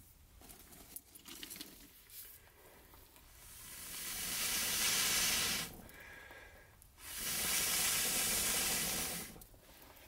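Someone blowing into a small wood cooking fire to feed it air so the coals catch: two long breaths, the first building up over about two seconds and stopping abruptly, the second following about a second later.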